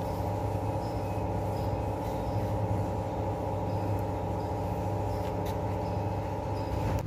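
A machine running with a steady, even hum, with a faint tick repeating every half second or so.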